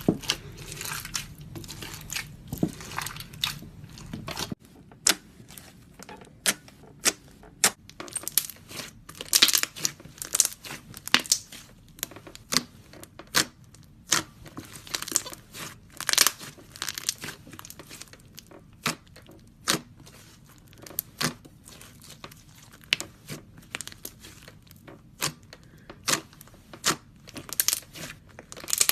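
Slime being squeezed, poked and stretched by hand, giving a stream of irregular sticky pops and crackles.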